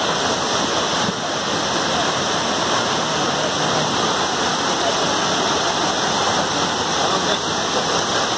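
Muddy floodwater rushing down a road in a cloudburst, with heavy rain falling: a steady, loud rush of water.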